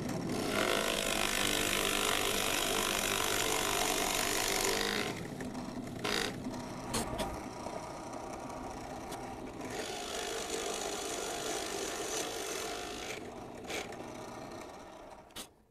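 Bench drill press running, its Forstner bit boring a concealed-hinge cup hole into a wooden cabinet door and throwing chips. The cutting is loudest for the first five seconds and again for a few seconds past the middle, with the motor running more quietly in between.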